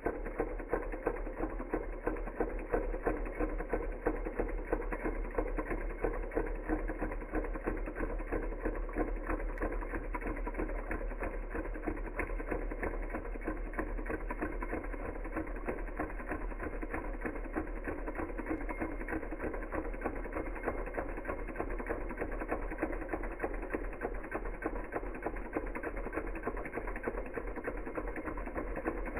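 Small Hog Motor Stirling heat engine running steadily, its piston, beam linkage and flywheel making a rapid, even mechanical clatter.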